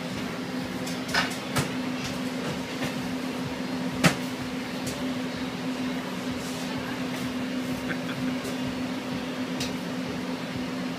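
Metal spatula knocking and scraping on a flat-top griddle as meat is worked, a few sharp clacks with the loudest about four seconds in, over a steady hum of kitchen equipment.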